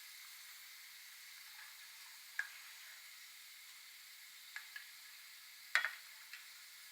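Dry macaroni deep-frying in hot oil, with a steady, quiet sizzle. A few short sharp clicks cut through it, the loudest near the end.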